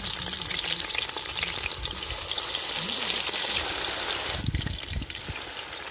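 Marinated chicken pieces being dropped by hand into hot oil in an aluminium pot, the oil sizzling and bubbling hard. The sizzle swells about two and a half seconds in and falls away sharply near the end.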